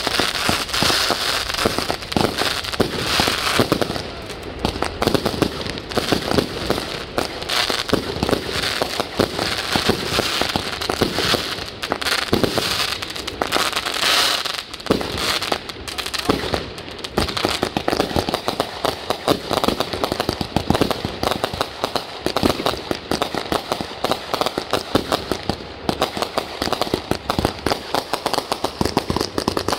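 Consumer fireworks going off in dense succession: a continuous mass of rapid pops, bangs and crackling bursts with no pause.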